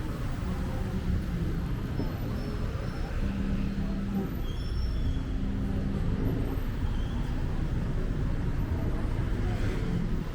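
Road traffic on a busy city street: a steady rumble of passing cars and other motor vehicles.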